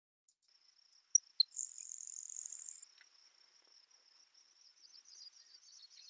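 Field recording of a grasshopper sparrow singing once: two short, sharp introductory notes about a second in, then a thin, high buzz lasting about a second. In the second half, a Sprague's pipit sings quietly in the background as a run of descending high notes.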